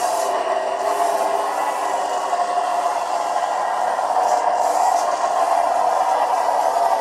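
Simulated engine sound from the sound module of a 1:16 Bruder Dodge RAM RC pickup conversion, playing steadily through the model's small speaker as it drives, with little deep bass. It gets slightly louder about four seconds in.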